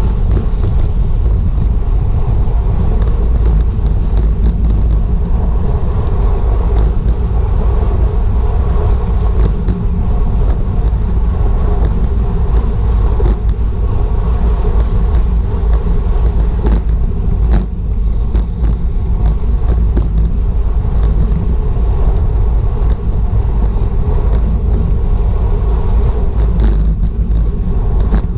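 Wind buffeting a bicycle-mounted GoPro at racing speed: a loud, steady low rumble mixed with road noise, and frequent sharp clicks and small rattles from the bike.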